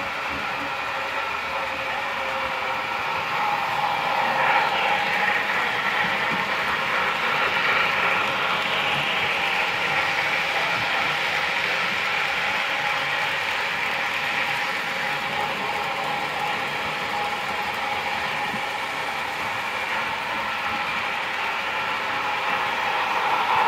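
Model steam locomotives running around the layout track: a steady mechanical rattle of wheels and gears that grows louder as a train passes close about four seconds in and again near the end.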